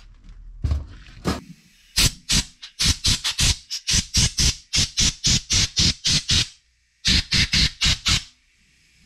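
Compressed-air blow gun fired in rapid short blasts, about four a second, with a brief pause partway through, blowing cleaning fluid off freshly ultrasonic-cleaned carburettor parts to dry them.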